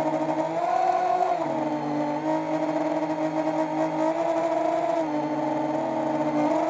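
FPV quadcopter's motors and propellers whining. The pitch steps up and down every second or so as the throttle changes.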